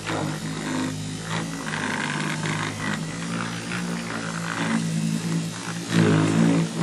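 Electric buffer running steadily with a low motor hum as it polishes rubbing compound on a plastic headlight lens; the hum swells near the end.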